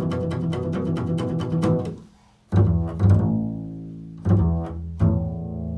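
Improvised solo music on a low stringed instrument: fast repeated strokes on low notes, about seven a second, that stop about two seconds in. Then come four single plucked notes, each ringing out and fading.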